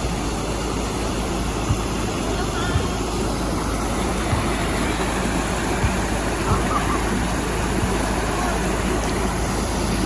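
Steady rumble and rush of a moving vehicle, with faint voices in the background.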